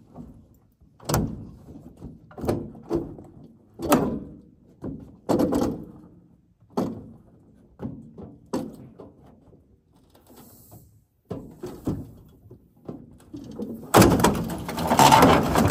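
A run of sharp metal clunks, roughly one a second. Then, about fourteen seconds in, a loud scraping crash lasting about two seconds: the 1984 Mazda B2200 pickup sliding off the trailer and dropping onto the ramp, its front catching on the way down.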